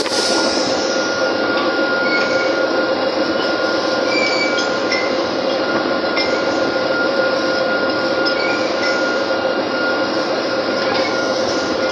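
Steady din of drilling rig machinery running, a constant mechanical hum with two held tones, with a few light metal clinks from pipe handling on the rig floor.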